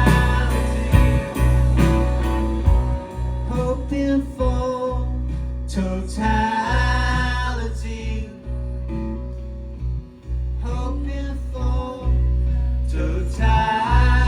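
Live band playing: drum kit with cymbal strikes at the start, a steady deep bass underneath, and guitar, with a melodic line rising and falling over it midway and again near the end.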